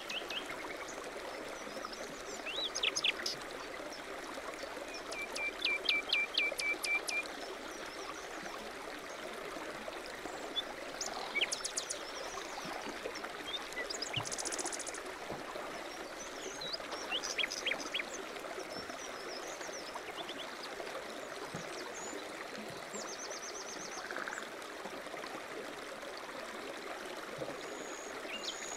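Birdsong over the steady rush of a flowing stream. Several birds give short chirped and trilled phrases throughout, one of them a quick run of even notes about five seconds in.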